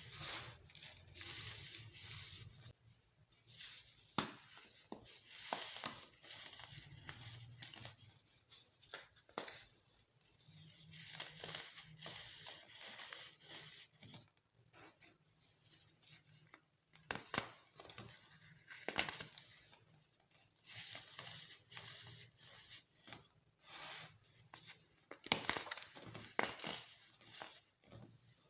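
Colored baking soda being crushed: crumbly crunching broken by sharp cracks, coming in irregular bursts.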